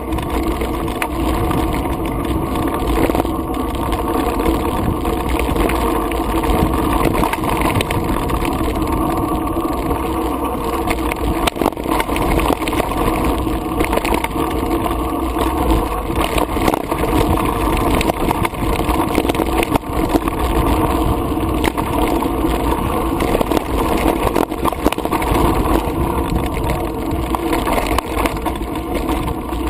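2010 Specialized Stumpjumper Comp mountain bike descending a dirt trail at speed, heard from a GoPro on the bike: a steady rush of tyre and wind noise with constant small rattles and knocks as the bike runs over the rough ground.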